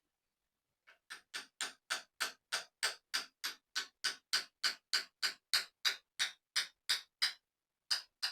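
A ratchet wrench clicking in short, even strokes, about three a second, with a brief pause near the end. It is driving a worn riser bushing out of the motorcycle's triple clamp.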